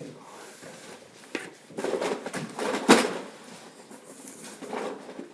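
Rummaging and handling objects: rustling and scattered knocks of things being moved about, with one sharp knock about three seconds in.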